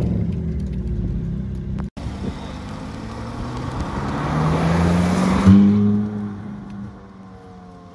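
Ferrari F430-series V8 engines: one running steadily at low revs, then, after a brief break, another accelerating past with its pitch rising. It is loudest about five and a half seconds in, then fades as the car pulls away.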